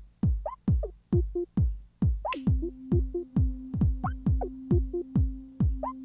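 E-mu MP7 Command Station playing back a drum-machine pattern: a steady kick drum a little under three beats a second with short synth blips between the hits. About two seconds in, a synth note slides down in pitch and then holds as a steady drone under the beat.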